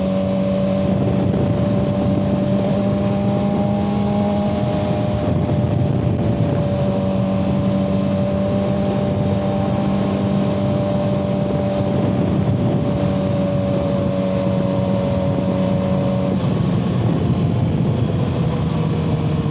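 Suzuki GSX-R 600's inline-four engine running at steady riding revs, with wind rush over the microphone; the engine pitch eases down about three-quarters of the way through.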